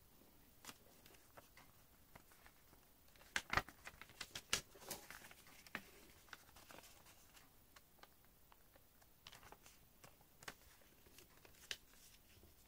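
A thin sheet of origami paper being handled and creased by hand: faint rustles and crinkles, with a flurry of sharper crackles about three to five seconds in.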